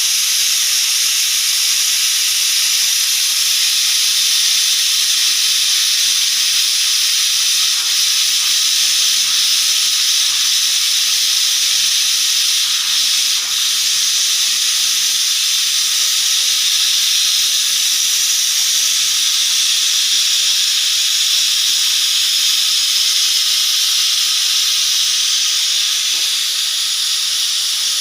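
Pressure cooker whistle venting steam in one long, loud, steady hiss, with a brief dip about halfway through.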